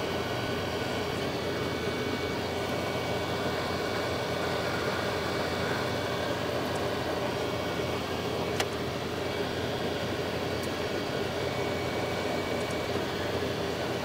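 Hot air rework gun's blower running steadily, heating the solder under the SGRAM memory chips while they are desoldered and lifted off with tweezers. A single light click a little past halfway.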